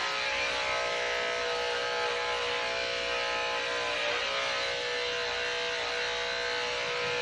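Electric dog grooming clippers running with a steady buzzing hum as they shave a border collie's coat short.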